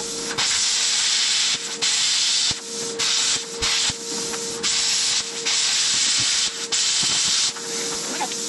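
Metal-cutting torch hissing in repeated bursts of half a second to a second as the trigger is pulled and released, cutting steel off an axle near the knuckle. A steady hum runs underneath.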